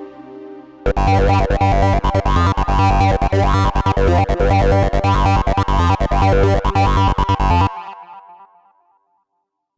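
Roland SH-201 synthesizer preset playing a fast, choppy rhythmic pattern over a deep pulsing bass. It starts about a second in, stops abruptly near the end, and its echo fades away. Before it, the tail of a sustained pad dies out.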